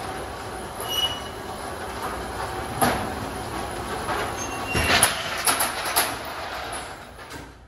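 Corrugated roll-up metal shutter rattling steadily as it rolls in its guides, with several sharp metallic clanks along the way. The sound fades out near the end.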